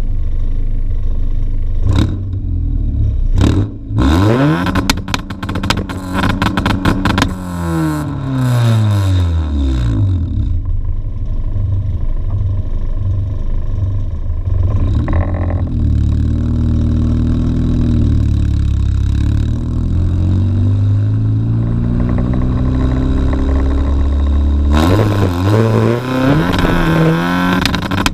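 Exhaust note of a Honda Civic's decatted, ECU-upgraded 1.4-litre D14 four-cylinder at the tailpipe, under way. The revs climb about four seconds in, fall away, run low and steady, then climb again near the end. A couple of sharp knocks come two to four seconds in.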